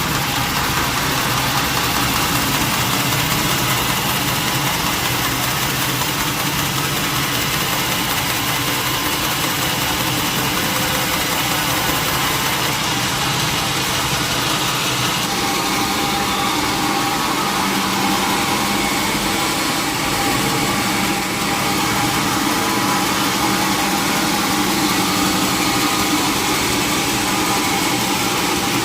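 Engine-driven sawmill saw running steadily, its tone shifting about halfway through.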